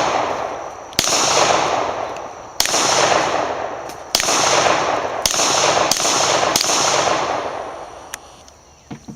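Six gunshots fired about one to one and a half seconds apart, each followed by a long echoing decay, the firing stopping about seven seconds in.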